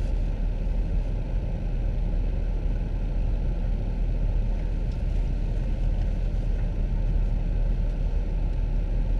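Steady low rumble of a car heard from inside the cabin, with the engine running.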